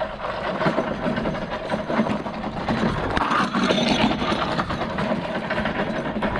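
Hand cart loaded with a bucket of tools rolling over gravel, wheels crunching and the tools rattling with many small clicks.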